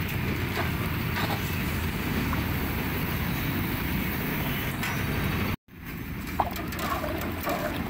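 Steady low rumble of roadside traffic noise, cut off briefly about five and a half seconds in, with a few faint light clicks after it.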